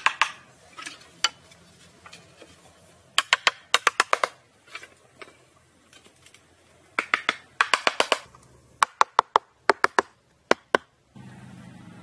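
Quick runs of sharp, hard taps, several strokes a second, with short pauses between the runs. A low steady hum comes in near the end.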